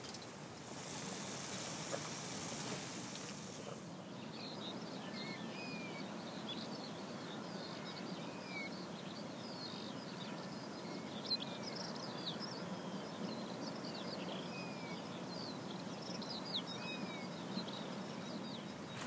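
Small songbirds chirping and calling, many short high notes and little whistles, over a steady outdoor background hiss. The birdsong starts about four seconds in, after a brief brighter high hiss.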